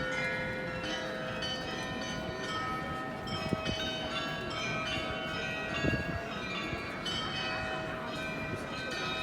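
The Glockenspiel bells in the Neues Rathaus clock tower playing a tune, struck notes following one another and ringing on over each other.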